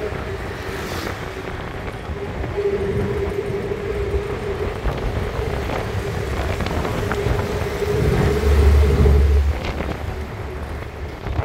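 Engine and road noise heard from inside a moving vehicle in city traffic: a steady engine hum over tyre rumble, swelling into a louder low rumble about eight seconds in and easing off shortly before ten seconds.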